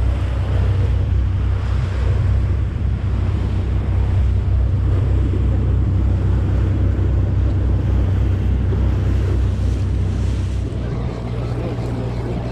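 Sportfishing boat's engine running steadily under wind and water noise, its note shifting lower and a little quieter near the end.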